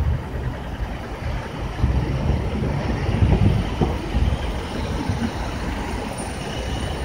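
Heavy downtown street traffic rumbling steadily, with large vehicles passing close by.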